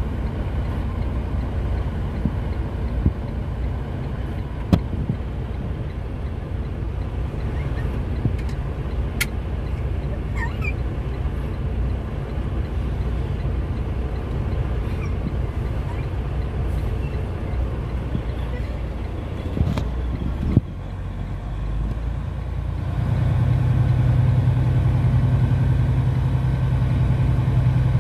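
Semi truck's engine and road rumble, running steadily. A brief dip comes about 21 seconds in, and from about 23 seconds a louder, steady low engine drone.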